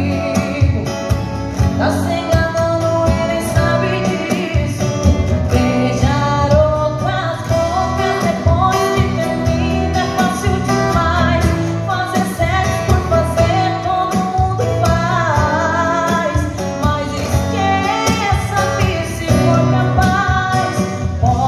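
A woman singing a song into a microphone, accompanied by a strummed acoustic guitar, played live over PA speakers.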